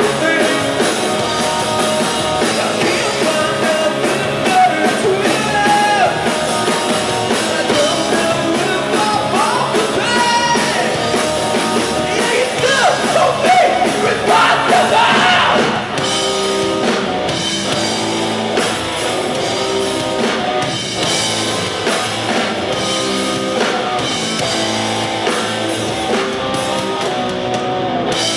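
Live rock band playing: distorted electric guitars, bass guitar and drums, with a sung lead vocal. About halfway through the singing stops and the band carries on with an instrumental guitar riff over the drums.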